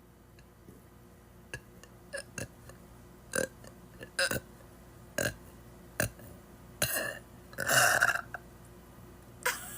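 A woman burping repeatedly: a string of short burps, the longest and loudest about eight seconds in.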